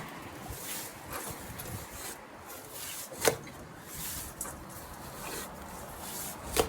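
Mason's trowel scraping and flinging mortar against stone, a rough rubbing scrape with two sharp clacks, one about halfway through and one near the end.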